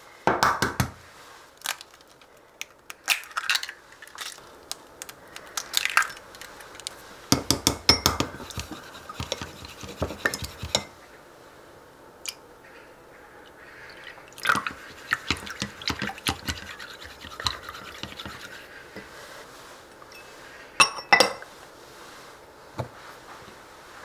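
Wooden chopsticks beating eggs in a small ceramic ramekin: quick clicking and scraping against the bowl's sides, in a fast run about a third of the way in, with scattered sharper clinks of crockery.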